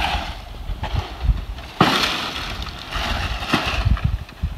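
Wind buffeting the microphone, with a sharp knock a little under two seconds in and a lighter one later.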